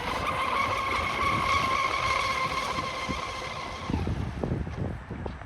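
Traxxas M41 RC boat's brushless electric motor whining at speed: a steady high whine that rises slightly at the start and fades away after about four seconds, followed by a few irregular low thumps.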